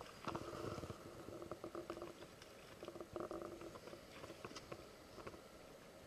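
Fishing reel winding in short spells, a low whirring hum with quick ticks, as a hooked fish is brought to the bank, with light splashing from the fish thrashing at the surface.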